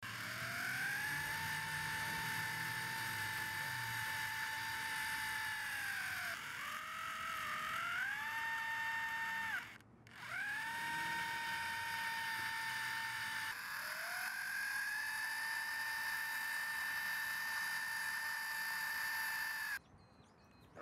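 Electric motor and propeller of a model airboat's ducted fan running with a steady whine. It winds down to almost nothing about ten seconds in, spins straight back up, and cuts off suddenly near the end.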